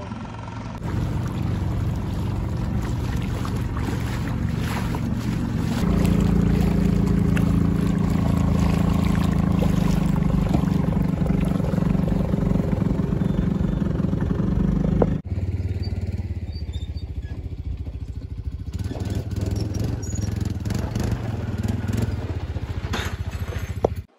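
Small outboard motor on an inflatable dinghy running steadily under way, with water and wind noise. The engine note grows louder about six seconds in and breaks off briefly about fifteen seconds in before running on.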